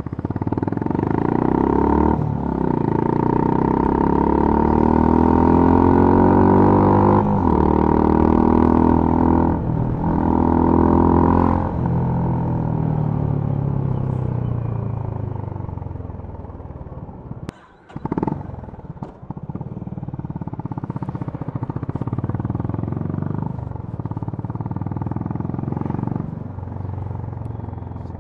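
Honda CB350 RS's single-cylinder engine and exhaust under way. In the first dozen seconds it accelerates hard, its pitch climbing and breaking at three upshifts. It then eases to a lower, steadier run with small throttle changes and a brief drop about two-thirds of the way in.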